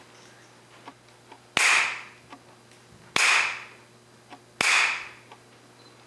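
Bamboo clapper (jukbi) struck three times, about a second and a half apart, each a sharp crack that rings briefly in the hall: the signal for the congregation to bow.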